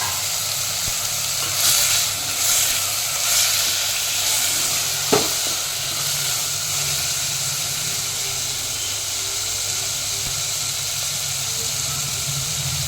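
Chopped onion, bottle gourd, green chillies and herbs sizzling steadily in hot oil in a pan while being stirred, with a few louder surges of sizzle in the first few seconds and one sharp tap about five seconds in.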